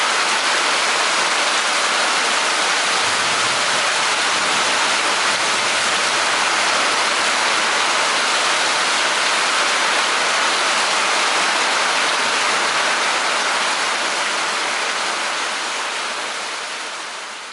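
Thunderstorm rain falling steadily, a dense even hiss that fades out near the end.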